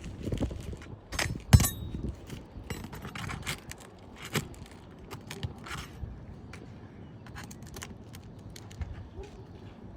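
Roofing shingles being carefully pried up by hand: scattered scrapes, crackles and clicks as the sealed tabs are worked loose, with one sharp knock about a second and a half in.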